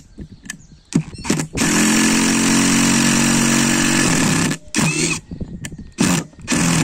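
DeWalt cordless impact driver hammering a coarse-thread screw into very hard wood with no pilot hole. A few short bursts, then one long run of about two and a half seconds, then more short bursts.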